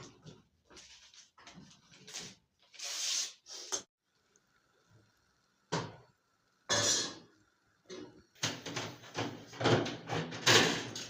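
Kitchen clatter: cookware and utensils being handled in short bursts of knocks and scrapes, with quiet gaps between them, busiest and loudest near the end.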